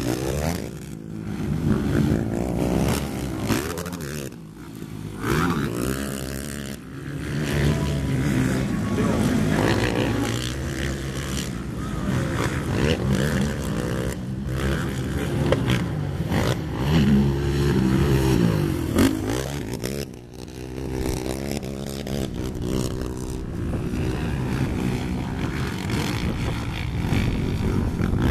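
Racing quad (ATV) engines revving hard and dropping off again and again, the pitch sweeping up and down as the riders accelerate and let off over jumps and corners.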